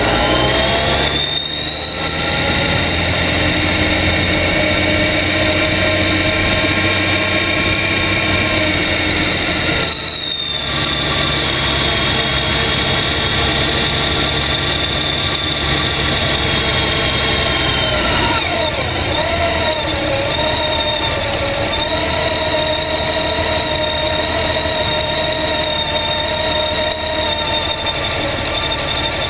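Motorcycle engine running under way, heard from a camera mounted low on the bike: its whine rises as it pulls away, cuts out briefly twice, slides down about two-thirds of the way through as it slows, then holds steady.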